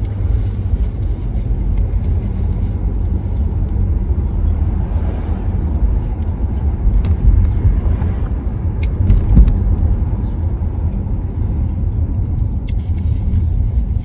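Road and engine noise inside a moving car's cabin: a steady low rumble with a few faint ticks, briefly louder about nine seconds in.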